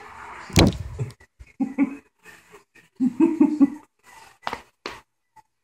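A sharp knock about half a second in, then short bursts of a low voice without clear words, and two sharp taps near the end.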